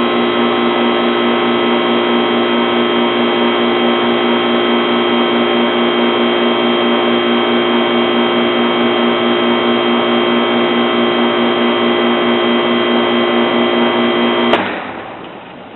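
Heat pump outdoor unit running with a loud, steady hum of its compressor and fan, then switched off at the disconnect near the end: a sharp click, the hum cuts out abruptly and only a fainter rushing noise remains.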